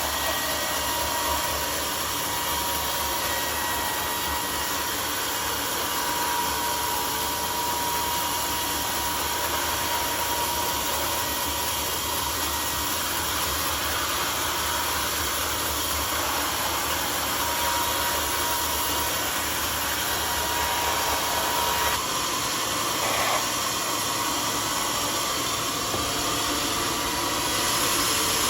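Homemade sawmill running steadily while sawing a mahogany log: a constant rushing noise with a faint thin whine. A low hum drops out about 22 seconds in.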